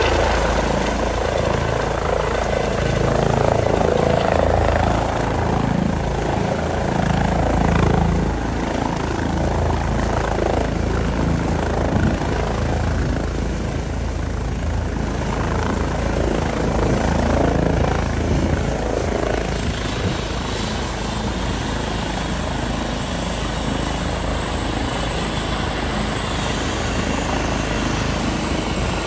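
Air ambulance helicopter landing on a rooftop helipad: steady rotor and turbine noise as it descends and sets down, a little quieter from about eight seconds in, then running on the pad with its rotors turning.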